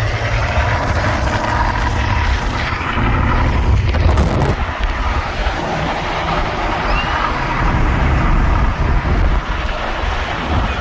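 Steady, loud vehicle traffic noise, heavy in the low end, with wind buffeting the microphone.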